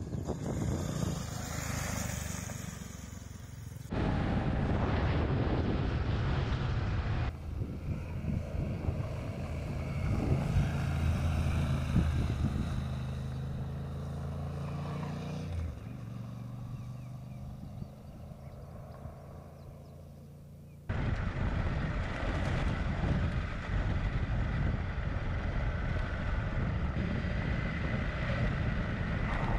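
Adventure motorcycles running on gravel tracks. One bike's engine grows louder and then fades, and later a steady engine and road noise is heard from on board. The sound changes abruptly several times.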